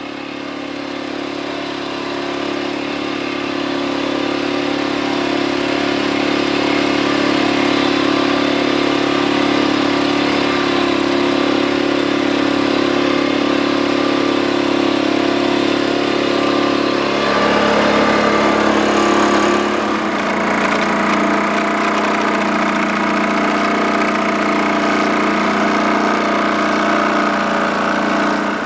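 Holder A12 tractor's air-cooled single-cylinder two-stroke Sachs diesel running steadily while pulling a tine cultivator through the soil. It grows louder over the first few seconds, and the engine note shifts about two-thirds of the way through.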